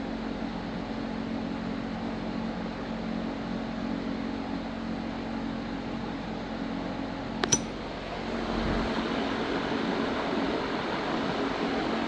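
Vintage Artic Aire box fan running steadily, its motor humming under the rush of air. About seven and a half seconds in, the speed switch clicks and the fan speeds up, its air noise growing louder.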